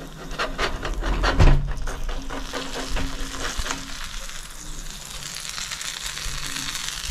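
Metal spatula scraping and knocking on a barbecue hotplate as a grilled bream is slid up and flipped over, with the fish sizzling on the hot plate. The scrapes and clicks come in the first few seconds, the loudest about one and a half seconds in, then a steady sizzle carries on.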